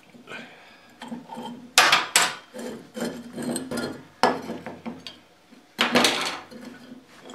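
A two-part steel ingot mold and its C-clamps clanking and knocking as the clamps come off and the mold is pulled apart and set down on a firebrick after a pour. Several sharp metal clinks with rattling and scraping between them, the loudest about two seconds in and about six seconds in.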